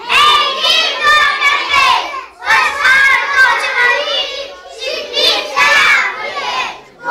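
A group of young children chanting loudly together into a microphone, in three phrases of about two seconds each with short breaks between.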